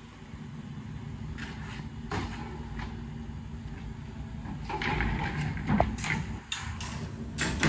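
Welded-wire steel fence panel knocking and clattering as it is carried and pushed into the cargo box of a rental moving truck: scattered sharp knocks, busiest and loudest about five to six seconds in, over a steady low background noise.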